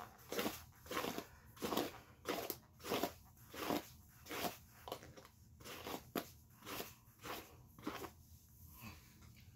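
Hairbrush dragged in quick, repeated strokes through long, wet, tangled hair: about fourteen brief brushing noises, roughly three every two seconds.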